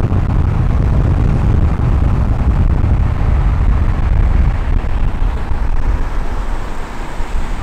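Loud, steady low rumble of a motor vehicle running, easing off somewhat near the end.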